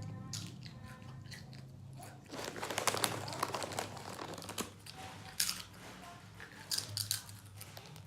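Crunching and chewing of a crunchy, spicy snack close to the microphone. A dense run of crunches starts about two seconds in, followed by a few separate crunches near the end, over a low steady hum.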